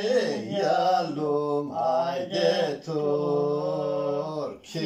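A man singing unaccompanied, drawing out long held notes that slide up and down in pitch, with a short break for breath near the end.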